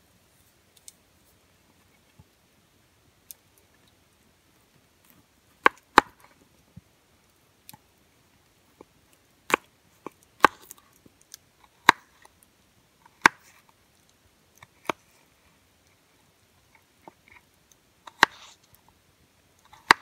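Knife slicing a raw potato on a wooden cutting board: sharp, irregularly spaced knocks of the blade hitting the board, starting about five seconds in.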